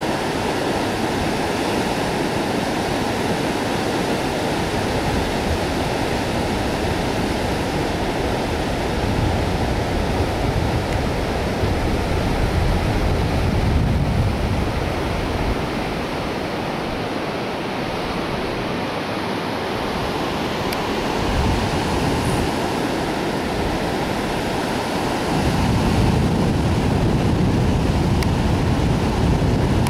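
Pacific surf breaking and washing up a flat beach: a steady rush of waves, with low rumbles of wind buffeting the microphone now and then. It grows louder in the last few seconds.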